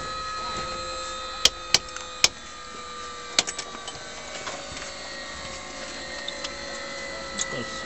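Light aircraft cockpit on the ground: a faint whine slowly falling in pitch, with four sharp clicks between about one and a half and three and a half seconds in.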